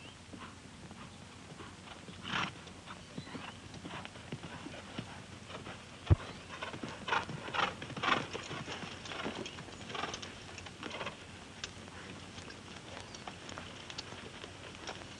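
Horses' hooves clip-clopping at a walk on a dirt trail, uneven and loudest in the middle. One sharp click about six seconds in.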